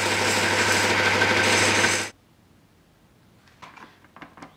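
Bench belt sander running with a brass rod held against the belt and being ground, a steady motor hum under the grinding noise. It cuts off abruptly about two seconds in, and a few light clicks and taps follow.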